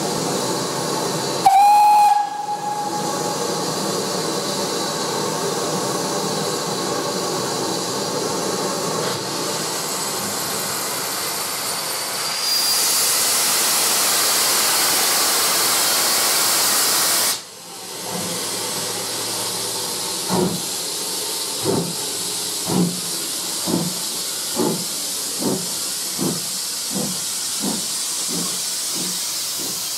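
BR Standard Class 2 2-6-0 steam locomotive No.78018 sounds a short whistle, then stands hissing steam, with a louder hiss for about five seconds in the middle that cuts off suddenly. It then pulls away, its exhaust chuffs starting slow and quickening as it gets under way.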